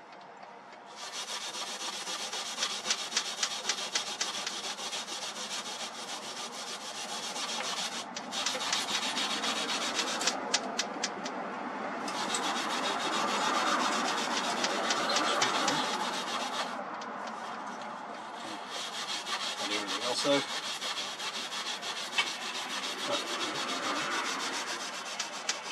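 Wire wool scrubbing old shellac off a wooden clock case in continuous rubbing strokes, with a few short pauses.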